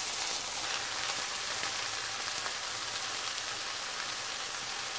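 Breaded cod fillets frying in butter and oil in a pan, a steady sizzle.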